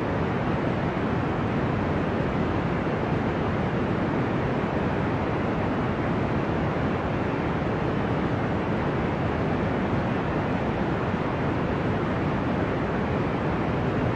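Deep, ocean-like white noise: a steady, dull rushing sound with no rise and fall of individual waves.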